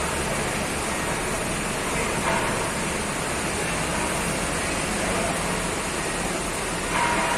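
Forklift engine running steadily, heard as a constant noisy drone with no clear change in speed.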